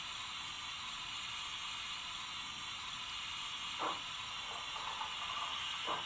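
Recorded steam-locomotive sound from the Zimo sound decoder in a Roco H0 BR 55 model steam locomotive, played through its small speaker. It is a steady steam hiss, broken by two short sounds, one about four seconds in and one near the end.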